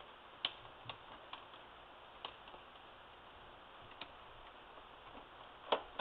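Small screwdriver backing out a tiny screw from a laptop's screen mount, heard as faint, irregular light clicks and ticks, the loudest near the end.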